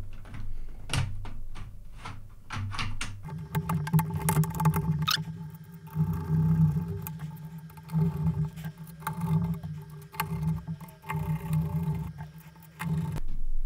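Clicks and knocks from small parts and screws being handled while a Picatinny rail is fitted to the blaster's plastic shell. From about three seconds in, a steady low hum runs until shortly before the end, with a few faint squeaks over it.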